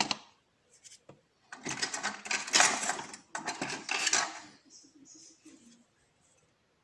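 Small brass lock pins and springs clattering and rattling against a tray for a few seconds, after a single sharp click at the start.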